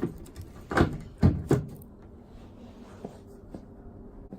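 Three clunks in quick succession, the last two about a quarter second apart, followed by a faint steady hum.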